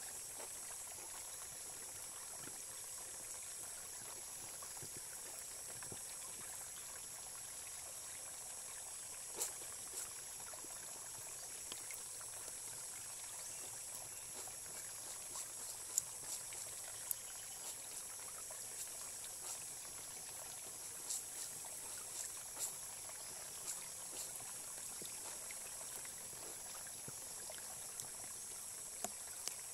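A shallow stream babbling over pebbles, a steady rush of running water with small sharp splashes every few seconds.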